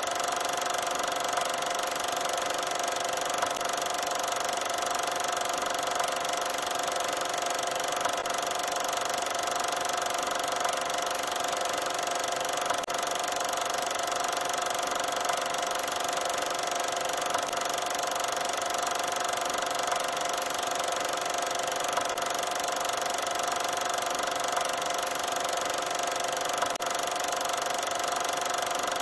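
Steady mechanical whirring and clatter of a running film projector, with faint ticks now and then.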